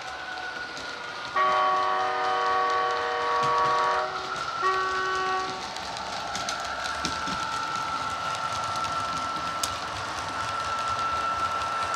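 A model train's DCC sound-decoder horn, on the Hornby Mk3 DVT, sounds twice: a long blast, then a short one. Then comes the running noise of the passing model train, with scattered clicks and a steady high whine.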